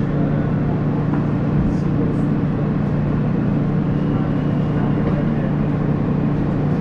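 Steady rumble and hum inside a moving R160A subway car: wheels running on the rails with the drone of the running gear, unchanging in level.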